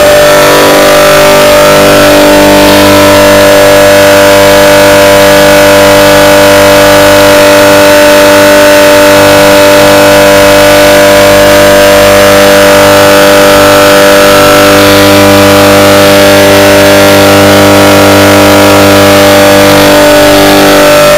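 Copeland two-cylinder reciprocating hermetic compressor, its shell cut open, running on single phase: a loud, steady hum.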